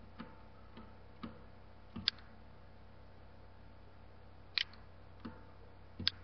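Computer mouse clicking a few times over a faint steady hum, with the sharpest clicks about two, four and a half and six seconds in, some of them paired as a press and release.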